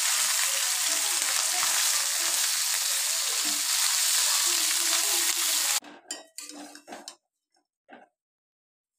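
Small mourala fish frying in hot mustard oil in a kadai, a steady sizzle as they are stirred with a metal spatula. The sizzle cuts off suddenly about six seconds in, leaving a few faint knocks.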